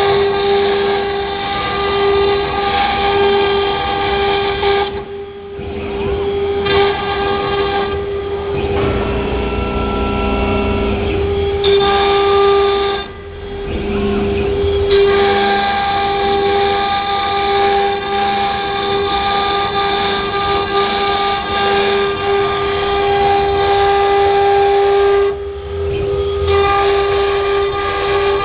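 A 3.2 kW water-cooled CNC router spindle runs with a steady high whine while its bit cuts 15 mm MDF. The whine and cutting noise dip briefly three times, about five, thirteen and twenty-five seconds in.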